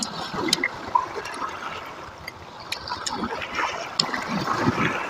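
Small sea waves washing and trickling over a pebble shore, with a few light clicks of a fork on a glass plate.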